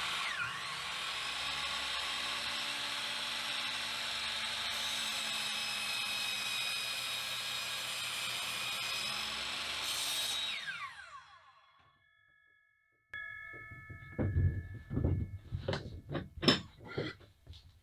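Kobalt 10-inch 15-amp sliding compound miter saw's motor running at a steady high whine through a cut in a board, then spinning down over about a second and a half after release. Several knocks and clatters follow near the end as the saw and workpiece are handled.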